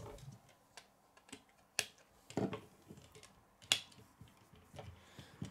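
Several sharp, irregular plastic clicks and knocks as Lego wheels are pushed onto a Lego truck's axles and the truck is handled on a wooden tabletop.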